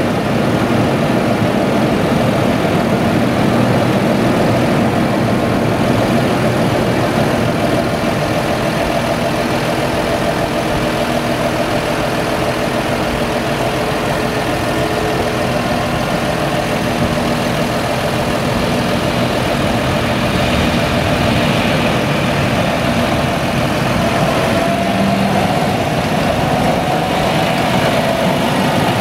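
Claas Jaguar 970 forage harvester chopping maize, its MAN V8 engine running as a steady drone under load with a steady whine. Near the end a second engine note rises as a tractor draws closer.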